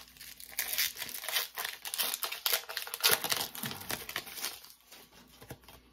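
Foil Pokémon TCG booster pack wrapper being crinkled and torn open, an irregular crackle of plastic foil that fades out about five seconds in.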